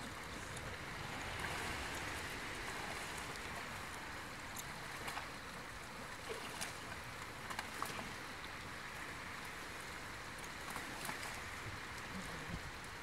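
River water running and splashing around men wading as they push a dirt bike out of the stream onto the bank, with a few short knocks and splashes in the middle.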